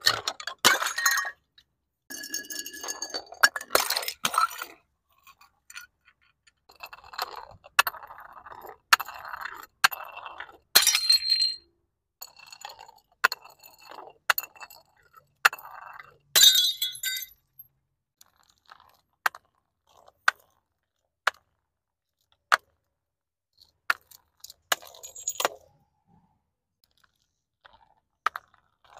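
Glass bottles filled with gel water beads tumbling down concrete steps, clinking and knocking against the step edges, with several bursts of glass breaking and beads scattering in the first half. Later a single bottle rolls down, giving a sharp tap about once a second at each step.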